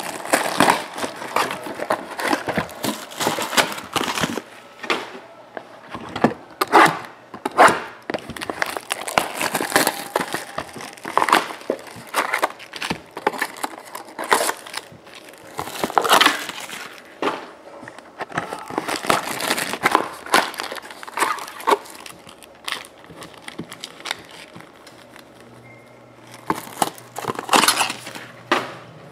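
Plastic shrink wrap and card packs crinkling and crumpling in irregular rustling bursts as hands unwrap a trading-card box and pull the packs out, easing off for a few seconds near the end.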